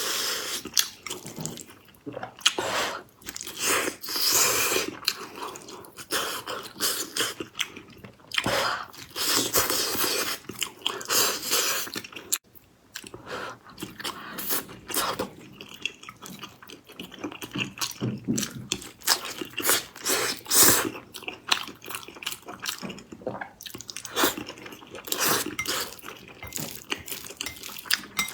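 A person chewing and biting a soft, sticky food, with irregular clicks and smacks of the mouth throughout.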